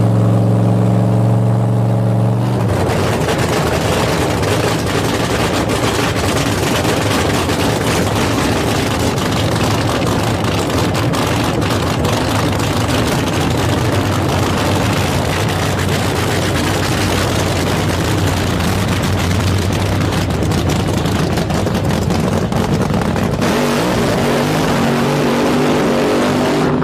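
NHRA funny car's supercharged nitromethane V8 running loud and harsh with a very fast crackle, after a steady droning tone for the first couple of seconds. Near the end the sound turns duller and rougher.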